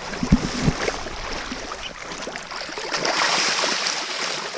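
River water splashing and rushing in the shallows, with two short low thumps about half a second in and a louder splash about three seconds in.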